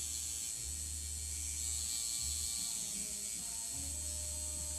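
A steady electrical buzzing hum with a high hiss; the low part of the hum drops out briefly a few times.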